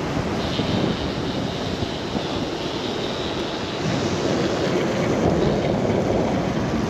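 Wind rushing over the microphone and tyres rolling on the road as a Harley-Davidson motorcycle coasts downhill with its engine off, with no engine running. The rushing grows a little louder about four seconds in.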